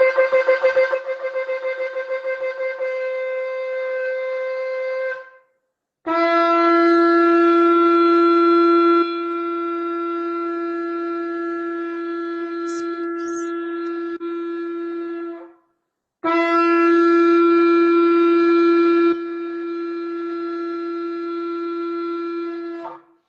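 Shofar blown in three long blasts. The first, higher and wavering early on, cuts off about five seconds in; the next two are lower held notes of about nine and seven seconds, each dropping in loudness partway through.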